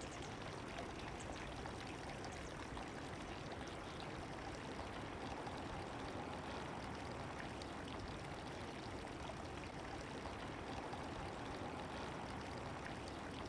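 Faint, steady wetland ambience: an even rushing noise like flowing water, unchanging throughout.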